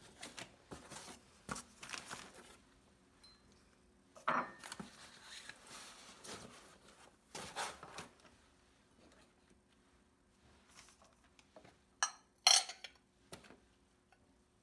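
Dishes and glassware being handled and set down, giving scattered short clinks and knocks. The loudest are two sharp clinks close together about twelve seconds in.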